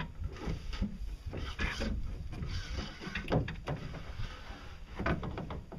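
Irregular scraping, rubbing and knocking of a metal propeller shaft being worked in its tube in the boat's hull, the tube's bearing removed and dirt inside it.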